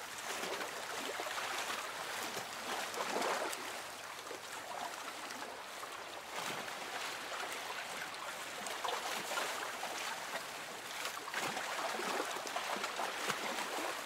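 Calm sea waves washing in and out, a continuous soft hiss of water that swells gently now and then.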